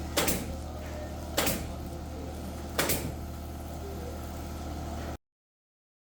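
Three sharp knocks, about a second and a half apart, over a steady low hum, from work on ceiling framing; the sound cuts off abruptly about five seconds in.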